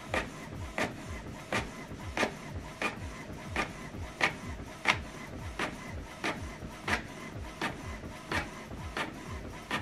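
Canon MG3650 inkjet printer printing a page: a steady rhythm of short strokes about every two-thirds of a second as the print head shuttles back and forth and the paper steps forward.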